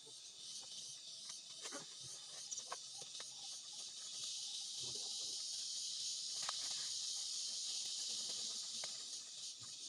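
Insects buzzing in a steady high-pitched chorus, a little louder in the middle, with a few faint scattered clicks.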